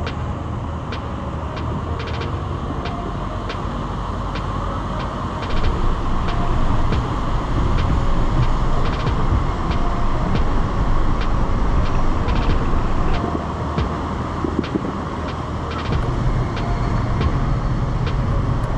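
Off-road vehicle driving slowly on a rough dirt trail: a steady engine and drivetrain rumble with tyre and road noise, growing louder for several seconds in the middle. A light ticking repeats about every half second.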